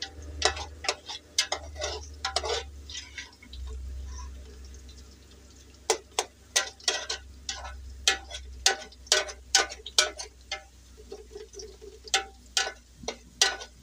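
Kitchen utensils knocking against dishes: a series of sharp, irregular clicks, a cluster at the start, a pause of a few seconds, then a quicker run to the end, over a low steady hum.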